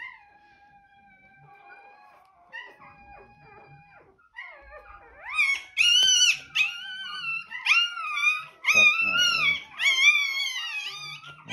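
Newborn German Shorthaired Pointer puppy crying as its tail is docked: a faint thin whine at first, then from about five seconds in loud high-pitched squealing cries that rise and fall in quick succession. This is the brief whining that stops once the pain passes.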